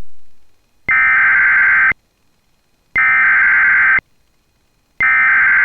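Emergency Alert System SAME data bursts: three bursts of digital data tones, each about a second long and about two seconds apart. They follow a click that fades out at the start.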